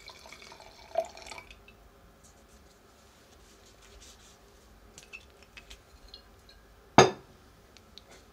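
Red wine pouring from a bottle into a large wine glass, with a clink about a second in as the pour ends. A few light taps follow, then a single sharp knock about seven seconds in, the loudest sound.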